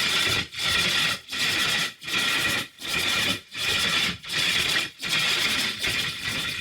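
Harsh, distorted noise bursts repeating at an even beat, about nine of them roughly 0.7 s apart: a heavily processed, scratch-like logo sound-effect edit.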